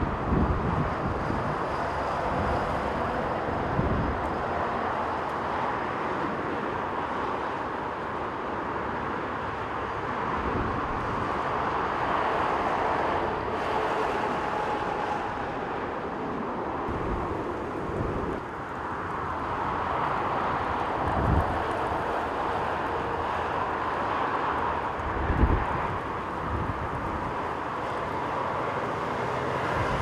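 Jet airliner engines during landing and rollout, a steady rushing with a faint steady whine, while a gale-force gusty wind buffets the microphone with low thumps now and then.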